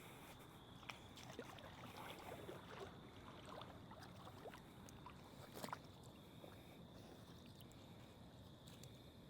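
Faint sloshing and small splashes of water as a carp is let go by hand back into the water, with a slightly louder splash about five and a half seconds in.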